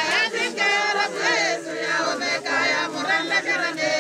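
Mourners singing together in many overlapping voices: a group funeral song or hymn.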